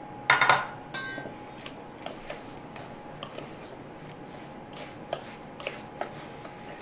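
A metal fork scraping and clinking against a stainless steel mixing bowl while stirring mashed bananas into sugar and oil. There are scattered small clicks, with one louder clatter about half a second in.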